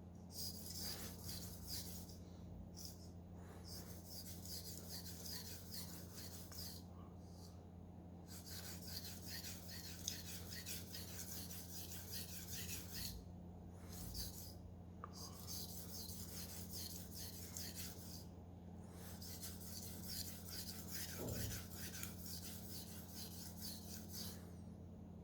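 A steel knife blade being stroked back and forth on a whetstone: quick, even rasping strokes in five runs, each a few seconds long, with short pauses between them. A faint steady electrical hum lies underneath.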